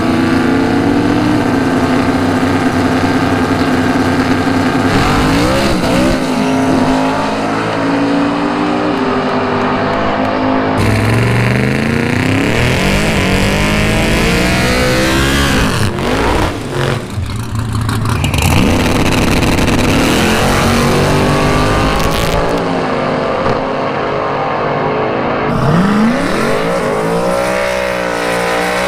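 Drag-racing muscle cars at the starting line, their engines idling, revving up and down and pulling hard off the line in rising runs. The sound changes abruptly several times from one car to the next.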